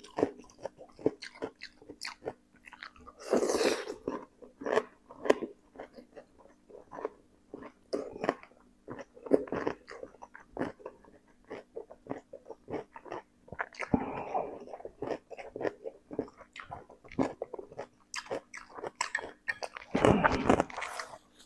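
Close-miked biting and chewing of crisp cucumber, with many short wet crunches. Three louder breathy rushes come about three seconds in, midway, and near the end.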